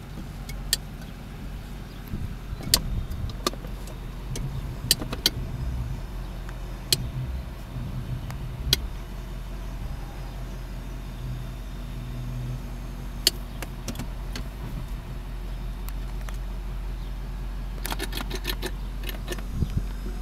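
GMC Sierra pickup engine idling, heard from inside the cab as a steady low rumble, with scattered sharp clicks and knocks and a quick run of them near the end.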